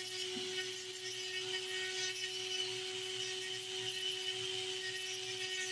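Small rotary tool running steadily with a sandpaper band on its drum, sanding the edge of an opal: one constant hum with an even hiss above it.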